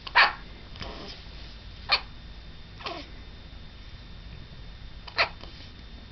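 A baby hiccuping: four short, sharp hiccups at uneven gaps of one to three seconds, the third one softer.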